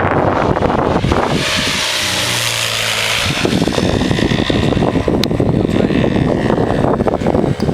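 Aircraft engine noise at an airshow, mixed with rough buffeting on the microphone. Between about one and a half and three seconds in, a steadier engine hum with a hiss stands out, then the rougher rumble returns.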